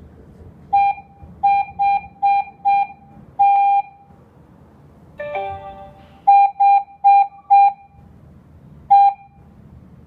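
Alarm panel's touch keypad beeping once for each key press as a password is typed in: short, identical beeps, about eleven in all, mostly in quick runs of two or three a second, one held a little longer about three and a half seconds in. A brief sound of another kind, with several tones at once, comes about five seconds in.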